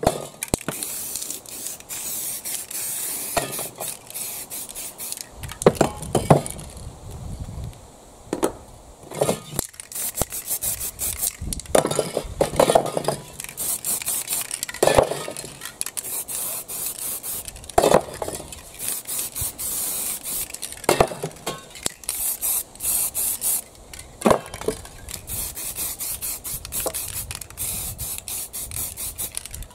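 Aerosol spray-paint cans hissing in repeated short bursts as paint is sprayed onto a stencil. Sharp knocks and clinks come between the bursts.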